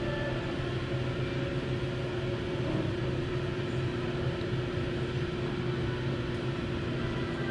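A steady low mechanical hum with a couple of held tones, running evenly without a break.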